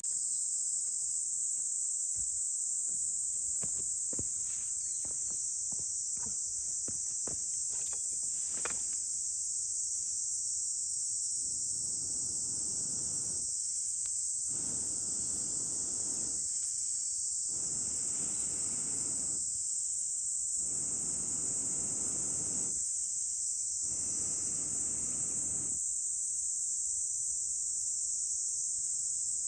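A campfire being blown on through a fire-blowing pipe: a series of about six long, breathy puffs, each a second or two with short pauses for breath, starting about a third of the way in. Insects shrill steadily throughout, and a few light clicks come in the first part.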